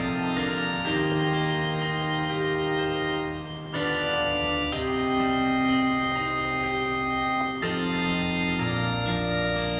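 Organ playing slow held chords, the chords changing every one to three seconds.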